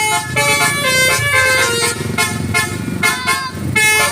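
Indonesian "telolet" multi-tone bus horn playing a tune of short held notes that step from pitch to pitch. About halfway through it pauses under engine and road noise and a few short rising-and-falling glides, then sounds again near the end.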